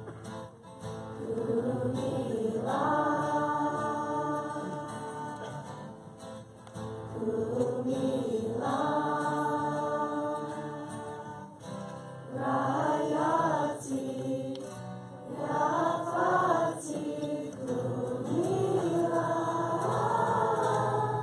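A group of voices singing a slow melody together to acoustic guitar strumming, with several long held notes and the phrases rising and falling between breaths.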